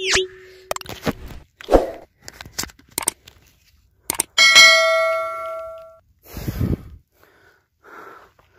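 YouTube subscribe-animation sound effect: a quick swish, a run of mouse clicks, then a bell ding that rings out for over a second, followed by a short whoosh.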